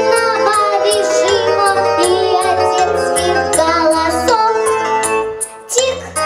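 Children singing a song over a backing track with a steady beat.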